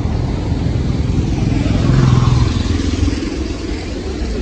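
Steady low rumble of canal water pouring through open sluice gates. A vehicle engine passes close by, loudest about two seconds in, then fades.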